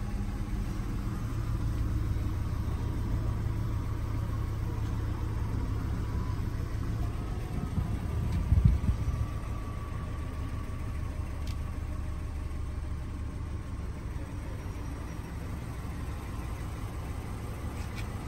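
Subaru Forester's flat-four boxer engine idling steadily, heard from inside the cabin, with a brief louder rumble about halfway through.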